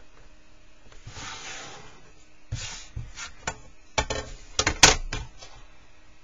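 A marker pen drawn across paper in one scratchy stroke, then a run of clicks and knocks as a wooden ruler and a plastic set square are lifted and set down on the drawing sheet; the loudest knock comes about five seconds in.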